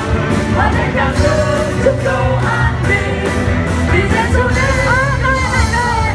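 Live Vietnamese Christian Christmas worship song: a group of singers with a band, sung melody over a steady drumbeat and heavy bass, recorded from inside the crowd.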